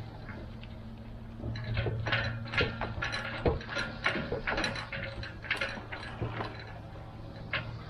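A boat trailer carrying a Windrider 17 trimaran, rattling and clanking as it is towed slowly down a ramp, over the steady low drone of the towing pickup. A run of irregular knocks and rattles starts about a second and a half in and thins out near the end.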